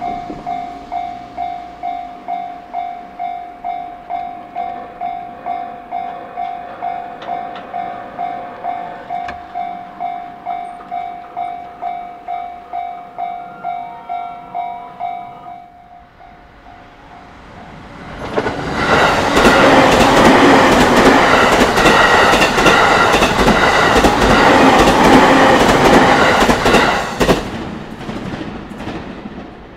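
Japanese level-crossing warning bell ringing in even strikes about twice a second, stopping about 15 seconds in. A few seconds later a train passes loudly for about nine seconds, wheels clattering over the rail joints.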